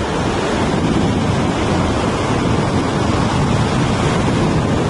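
Steady wind buffeting the microphone over the continuous rush of surf breaking on an open ocean beach.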